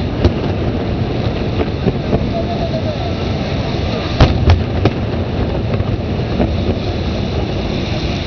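Aerial fireworks bursting: a few scattered sharp bangs, the loudest a quick run of three about four to five seconds in, over a steady din of background noise.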